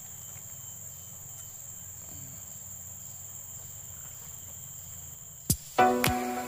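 Steady, high-pitched chirring of insects in the undergrowth. About five and a half seconds in, a click and then plucked-string outro music cut in, louder than the insects.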